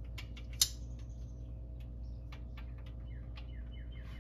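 Scattered light metal clicks and taps, one sharp click about half a second in, as a lifter-removal tool is worked into a lifter bore of a Ford 292 Y-block V8, over a steady low hum. From about halfway through, a bird chirps a quick run of falling notes, about four a second.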